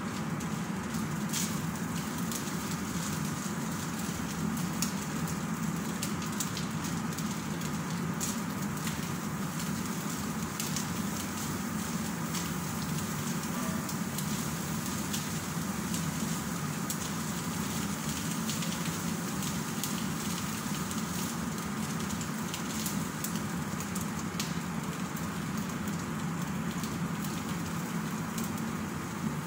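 Shredded chicken with carrots and bell pepper sizzling and crackling as it fries in a pan on a gas stove, with scattered small pops over a steady low hum.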